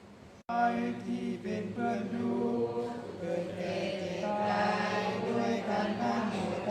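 Several voices chanting together in unison in a Thai Buddhist evening chant, holding long steady notes. The chanting comes in abruptly about half a second in, after a brief quiet stretch.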